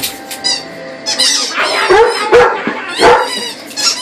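Squeaky rubber chicken dog toy squeaked over and over as a dog chomps on it: a quick, uneven run of high squeaks and short squawks, thickest from about a second in.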